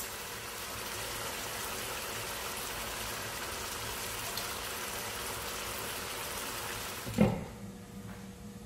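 Chicken and onions sizzling in a pot, a steady hiss. About seven seconds in, a glass lid is set on the pot with a sharp clack, and the sizzle goes quieter under it.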